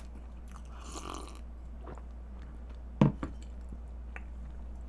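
A person lets out a single short burp about three seconds in, just after gulping milk, over a faint steady low hum.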